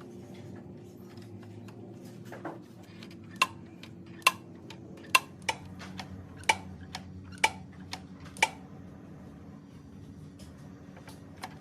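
A series of sharp, ringing metallic clicks, about one a second, over a steady low hum.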